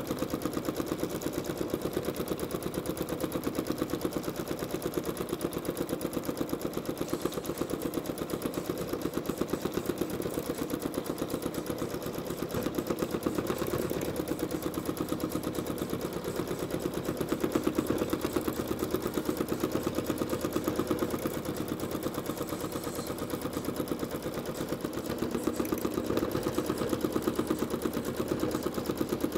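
Janome Skyline S9 sewing machine running steadily at speed, its needle stitching in a rapid, even clatter while free-motion thread painting a quilt.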